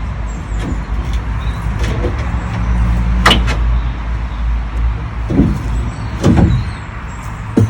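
Sharp knocks and bangs of wooden crate panels being worked open, a few seconds apart, over a steady low rumble.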